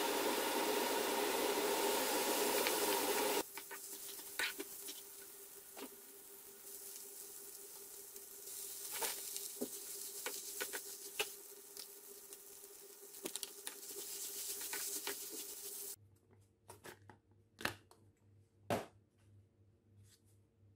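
Vegetables and noodles stir-frying in a nonstick wok: a loud sizzle for the first few seconds, then quieter sizzling with a steady hum and scattered clicks and scrapes of a wooden spatula against the pan. Near the end only a few sharp taps remain over a faint hum.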